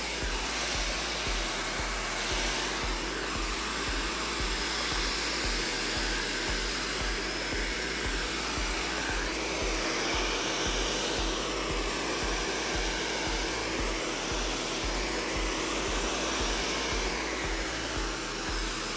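Handheld hair dryer blowing steadily on hair, a continuous rush of air whose tone shifts a little now and then.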